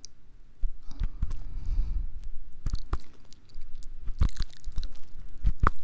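Thin ear pick scraping and poking inside a binaural microphone's silicone ear for ear-cleaning ASMR, giving irregular close crackles and clicks. The sharpest clicks come near the end.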